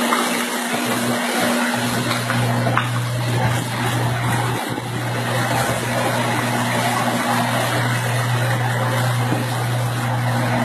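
Hurricane wind and heavy rain rushing steadily, under a steady low electrical buzz from a power line arcing and sparking.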